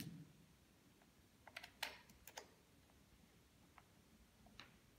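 Faint clicks of a cable plug being handled and pushed into the port of a DJI Phantom 4 Pro remote controller, a handful of them about two seconds in and a couple more later, over near silence.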